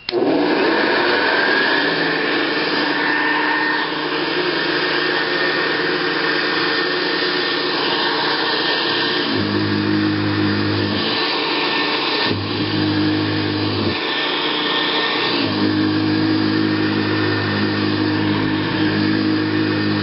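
Hoover Convertible U4063 upright vacuum cleaner starting up, its motor whine rising in the first second and then running loud and steady with a rushing airflow. In the second half a low hum comes and goes three times over the steady running.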